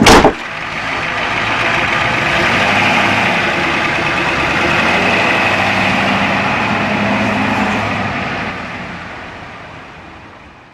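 A loud sharp knock, then a steady engine-like running sound that swells, holds and fades away near the end.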